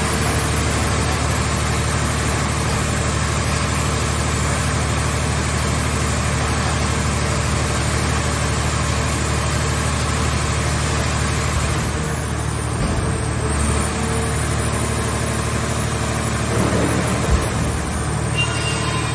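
Car-body baler's engine-driven hydraulic power unit running under load with a steady drone, easing briefly about twelve seconds in, with a single knock near the end.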